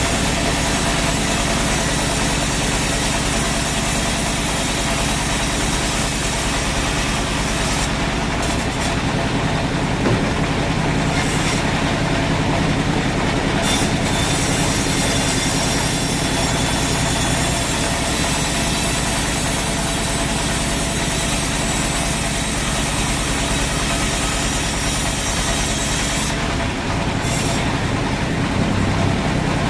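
Sawmill machinery running: a loud, continuous mechanical drone with a steady hum under a dense hiss. The high hiss drops away briefly a few times.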